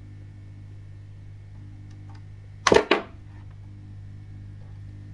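A steady low electrical hum, broken a little past halfway by one short, sharp clack with two hits close together: a hand tool working the keyboard's cut USB cable to bare the wires inside.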